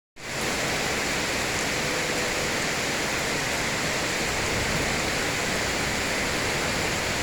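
Heavy rain falling during a thunderstorm, a steady even hiss with no thunderclap in it.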